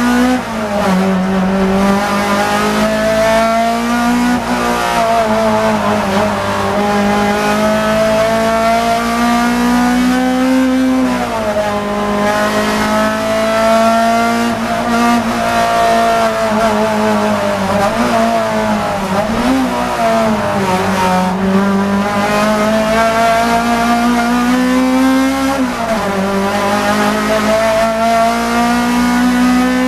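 Race car engine heard from inside the cabin, running hard under acceleration. Its pitch climbs slowly and then drops sharply several times, as at upshifts.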